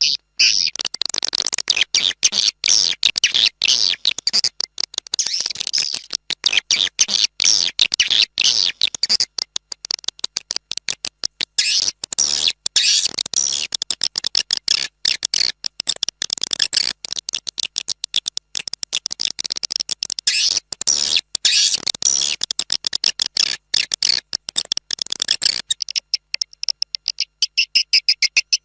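Swiftlet lure call recording: a dense, rapid stream of short, high chirps and twitters from swiftlets, the kind of call track played at swiftlet nest houses to draw birds in.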